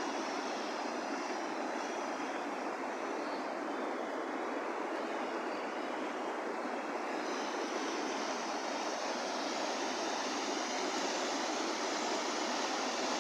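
River water rushing over rapids, a steady noise that gets slightly brighter and fuller about halfway through.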